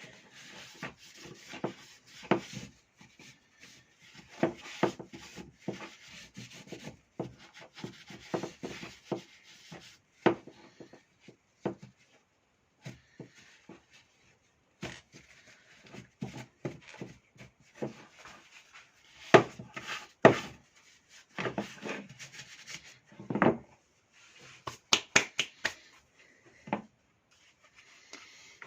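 Parts of an electric chainsaw being handled by hand on a workbench: irregular rubbing and scraping with many small clicks and knocks, a few sharper knocks about two thirds of the way through.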